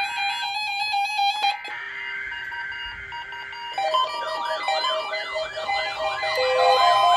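Electronic intro music with a fast rising-and-falling siren-like wail layered over it from about four seconds in.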